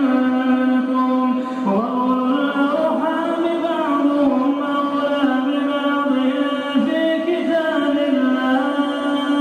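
A man's voice in melodic Quran recitation (tilawa), a single voice drawing out long held notes that glide slowly up and down.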